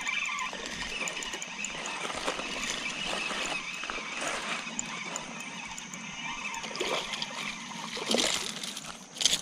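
Water splashing and sloshing as a small smallmouth bass hooked on a topwater walking bait thrashes at the surface, with a couple of sharper splashes near the end.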